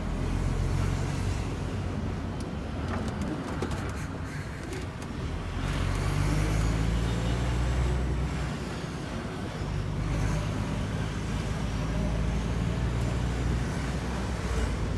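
DAF truck's diesel engine and drivetrain heard from inside the cab while driving. The engine note drops away and picks up again in the middle as the gearbox changes gear.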